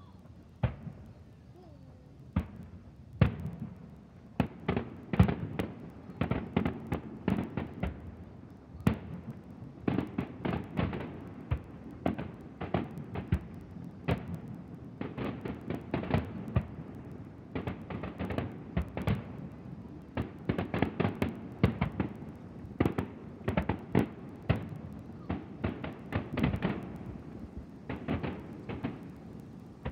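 Aerial fireworks bursting in quick succession: a few scattered booms at first, then from about three seconds in a dense barrage of overlapping bangs and cracks that keeps on.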